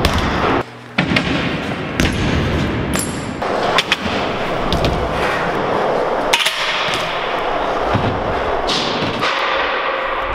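BMX bike riding in a skatepark: tyres rolling on concrete and ramps as a steady noise, broken by sharp knocks and thuds of hops and landings.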